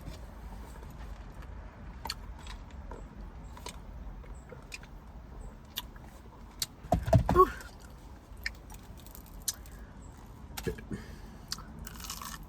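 Eating sounds close to the microphone: scattered small clicks and smacks, with one short, low burp about seven seconds in.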